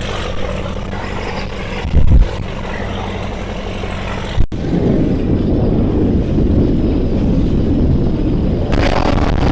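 Performance powerboat's engines running steadily under way, with wind buffeting the microphone. A gust thumps about two seconds in, and after a sudden cut midway the engine and wind noise are louder.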